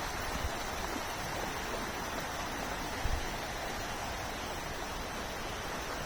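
Creek water rushing steadily, with a short dull low bump about three seconds in.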